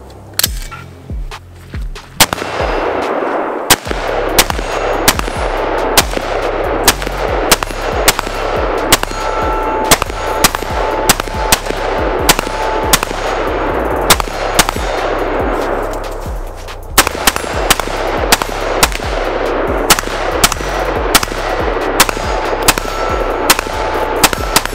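Repeated shots from a custom AR-style rifle fired at a steady pace, roughly two a second, over a background music track with a steady bass line.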